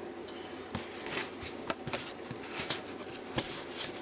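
Packaging of a boxed resin wash-and-cure station being opened and handled: a run of short rustles, scrapes and clicks, with one sharp click about three and a half seconds in.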